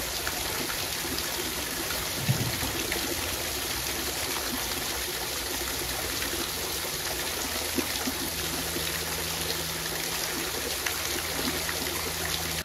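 Small waterfall of water spilling over a mossy stone wall and splashing into the channel below: a steady rush of falling water.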